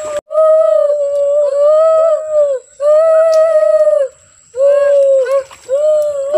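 A child's voice making long, wordless humming calls, about five held phrases with small rises and falls in pitch and short breaks between them.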